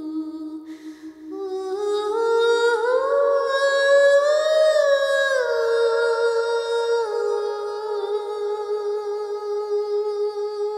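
Background music: a slow, wordless, humming-like melody of long held notes that slide up about three seconds in and ease back down in steps.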